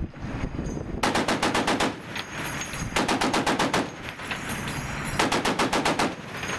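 .50 calibre heavy machine gun firing three short bursts of about a second each, rapid evenly spaced shots, roughly two seconds apart.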